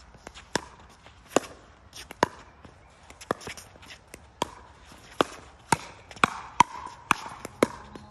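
Pickleball rally: a string of sharp pops from paddles striking the hollow plastic ball, with the ball bouncing on the hard court in between, about one to two a second and quicker in the second half.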